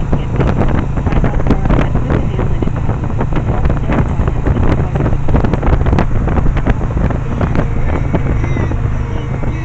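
Yamaha 1100 motorcycle engine running steadily while riding, with heavy wind rushing over the microphone.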